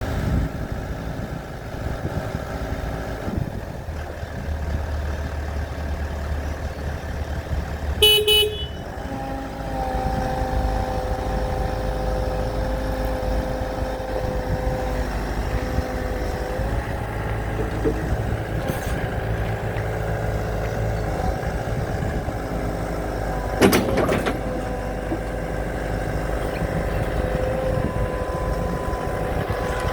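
2020 Komatsu PC138US-11 excavator's diesel engine running steadily, with a short horn toot about eight seconds in. A steady whine comes in soon after, and there is a sharp knock near the end.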